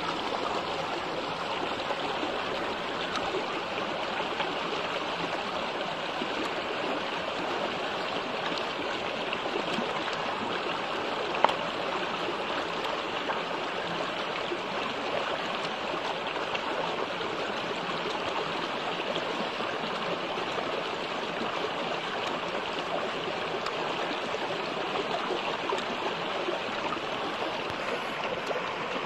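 Shallow stream running steadily over rocks, a continuous babbling and trickling. One sharp click stands out about a third of the way through.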